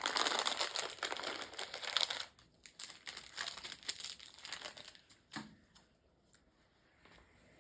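Crinkly wrapper of a blind-bag toy being torn open and crumpled by hand: dense crinkling for about two seconds, then sparser rustles and a soft knock, before it stops for the last two seconds.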